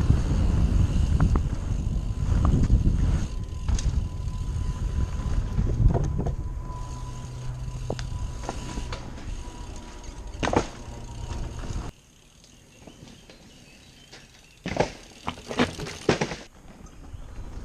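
Mountain bike being ridden over a rough dirt trail: wind rumbles on the microphone, with clicks and knocks from the bike over bumps. About two-thirds of the way through the sound drops off sharply, and a quick cluster of sharp rattles follows near the end.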